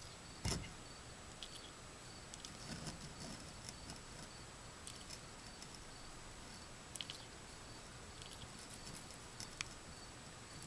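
Faint scattered scratching and light clicks of a small pet rodent moving about, with one soft thump about half a second in.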